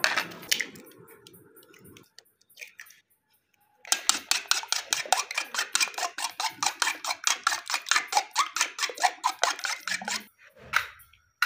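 Raw eggs cracked with a sharp tap of a steel spoon, then beaten fast in a bowl with the spoon: a quick, even run of spoon clinks against the bowl, about six a second, from about four seconds in until near the end.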